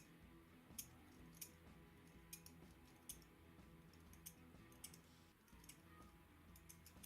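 Faint, irregular light clicks, about ten over several seconds, from the small parts of a mouse's microswitch (spring contact plate and housing) being handled and fitted back together, over a low steady hum.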